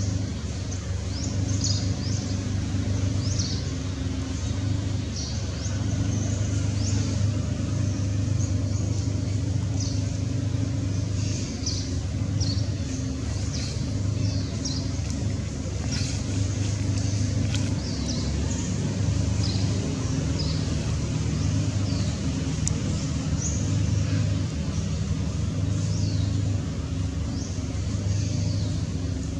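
Outdoor ambience: a steady low engine-like rumble, with many short high chirps scattered over it throughout.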